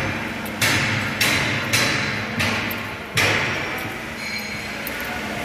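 Hammer blows on a construction site, five sharp strikes about half a second to a second apart, each echoing in a large bare hall.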